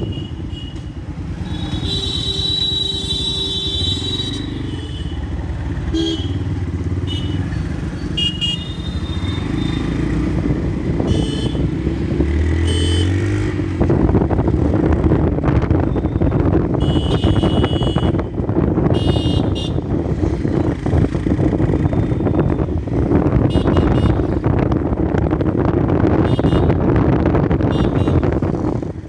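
Yamaha FZ-S single-cylinder motorcycle engine running while riding through traffic, getting louder about halfway through. Vehicle horns honk several times, longest a few seconds in.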